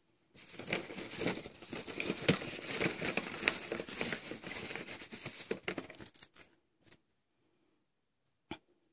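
A bag of small plastic toy hair accessories rustling and crinkling as a hand rummages through it, with light clicks of plastic pieces. The rustling stops about six seconds in, leaving a few single clicks.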